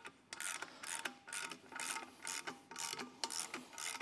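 Hand ratchet clicking in repeated strokes, about two or three a second, while bolts on the engine and transmission assembly are wound in.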